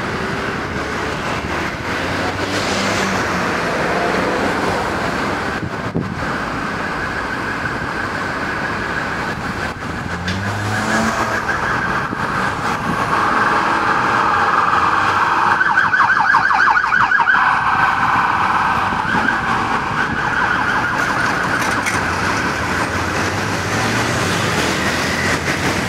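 Emergency vehicle siren sounding over street traffic, swelling to its loudest about two-thirds of the way through and then easing off.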